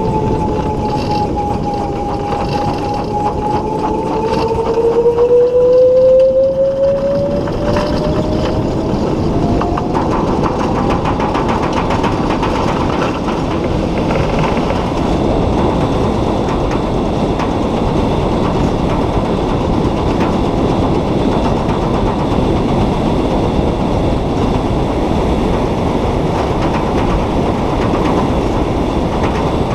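A solar race car's electric drive whines and runs over the road, heard from on board. The whine dips slightly and then rises in pitch over the first several seconds. It then sinks under steady road and tyre rumble for the rest of the time.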